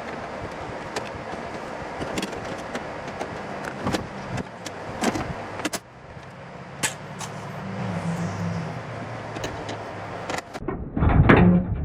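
Hand tools clicking and knocking against the metal of a pickup door while the screw and back nut holding the door handle are worked loose, over a steady rushing noise; a heavy thump about eleven seconds in is the loudest sound.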